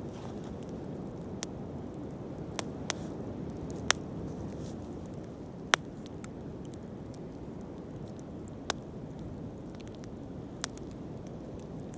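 Wood bonfire burning with a steady low rumble, punctuated by sharp, scattered crackles and pops from the burning wood, about seven in all, the loudest around four and six seconds in.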